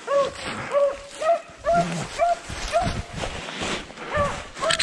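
Rabbit hounds barking in a string of short, ringing barks, about two a second with a short pause partway through, the voice of dogs running a rabbit's trail. A sharp click near the end.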